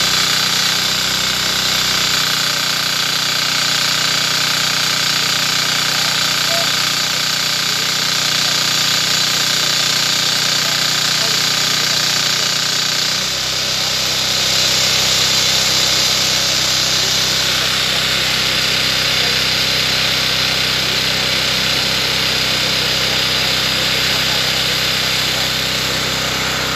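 Small engine-driven power unit running steadily, with a constant high whine over the engine noise; the sound changes abruptly about halfway through.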